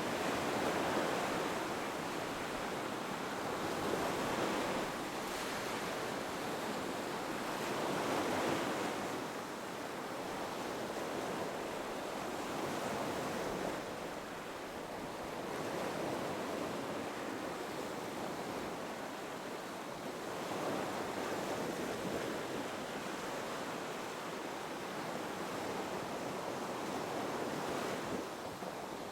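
Ocean surf: waves breaking and washing up a beach, swelling and fading every few seconds.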